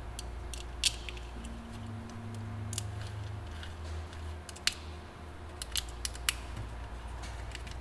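Small sharp clicks and ticks of a screwdriver working the screws of a metal airsoft gearbox shell held in the hands. About five separate clicks come at uneven intervals over a low steady hum.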